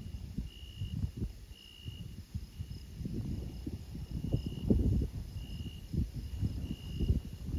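Crickets calling at night: short high chirps repeated about once a second, over an irregular low rumble that is loudest about halfway through.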